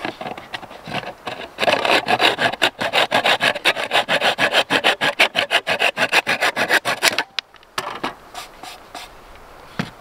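Hand saw cutting through the wooden perch peg on the front of a pine birdhouse, in quick back-and-forth strokes. After a few light starting strokes the sawing runs steadily for about five seconds and stops abruptly, followed by lighter handling of the wood.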